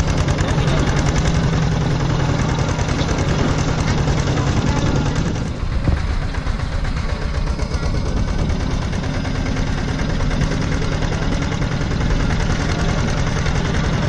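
Tractor engine running steadily with a rapid chugging beat as it pulls a loaded passenger trailer, easing off briefly about five and a half seconds in.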